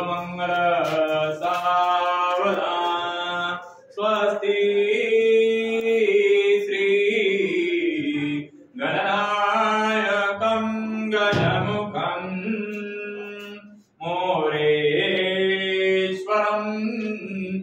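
A male priest chanting Hindu wedding mantras in a sung, melodic style, in long held phrases broken by short pauses for breath.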